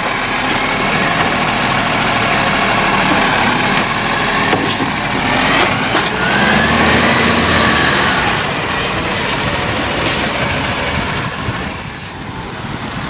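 Automated side-loader garbage truck's diesel engine running loudly, its pitch rising and then easing about six to eight seconds in, with a few brief high squeals near the end. The sound drops off at about twelve seconds as the truck moves away.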